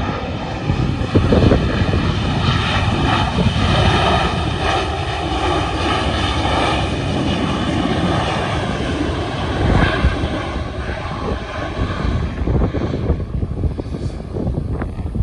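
Boeing 737-700 jet engines running loud as the airliner rolls down the runway after landing; the roar swells a couple of seconds in and eases off near the end. Gusty wind rumbles on the microphone underneath.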